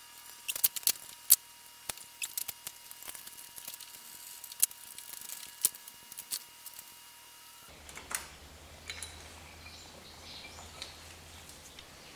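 Irregular sharp metal clicks and clinks of a small hand tool undoing the 7 mm nuts on the glow plug power leads of a Ford 1.8 TDCi diesel. A low steady hum comes in about two-thirds of the way through, with a few more clicks over it.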